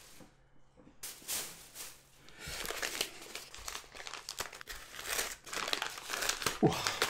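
Paper mailing wrapping crinkling and rustling as a parcel is unwrapped by hand, with many small crackles. It starts about a second in and gets busier partway through.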